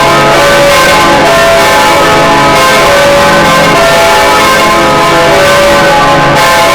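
Church bell rung freely in swing, loud, its strokes following one another without a break so that the ringing tones overlap and hang on.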